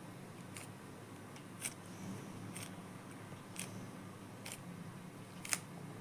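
Plastic 3x3 Rubik's cube being turned by hand, a sharp click as each layer turns, about once a second, six times, over a low steady hum.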